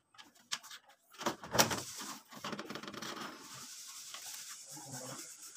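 Handling noises from wiring work with pliers: a few light clicks and one louder knock about a second and a half in, then a steady rustling.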